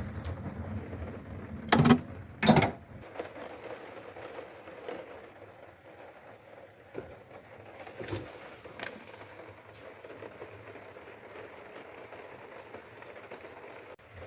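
Steady hiss of rain during a thunderstorm, with two loud sharp knocks about two seconds in and a few fainter clicks later on.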